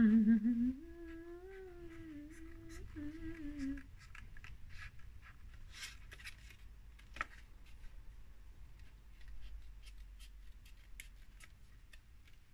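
Scissors cutting around the scalloped edge of a sheet of paper: many short, irregular snips. For the first few seconds a woman hums a short tune over the cutting.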